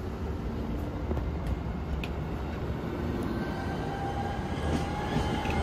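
A train approaching: a steady low rumble that slowly grows louder, with a faint high whine coming in about two-thirds of the way through.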